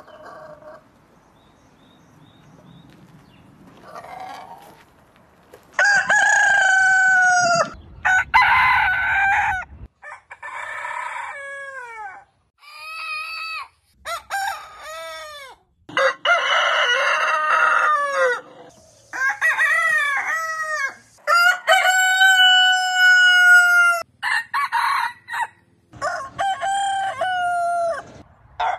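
Roosters crowing one after another, a different bird in each crow, starting about six seconds in: a string of about nine cock-a-doodle-doos, each one to three seconds long and cut off sharply, some longer and lower, some short and high with falling pitch.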